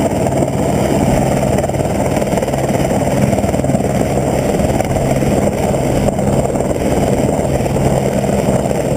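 Helicopter running overhead: a steady, muffled drone with a constant low hum.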